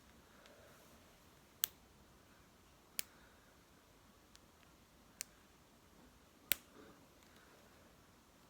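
Four sharp, separate clicks, a second or two apart, from a small household object worked by hand close to the microphone.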